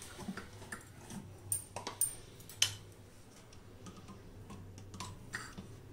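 Faint, scattered clicks and light clinks of kitchen utensils being handled, a few sharp ticks a second or so apart, over a low steady hum.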